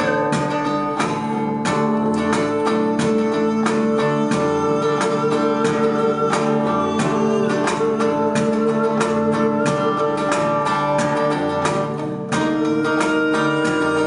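Live band music led by guitar: picked and strummed guitar notes over steady held notes, with a short dip in level about twelve seconds in.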